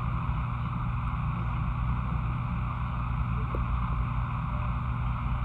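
A steady low mechanical hum with a continuous hiss over it, unchanging throughout.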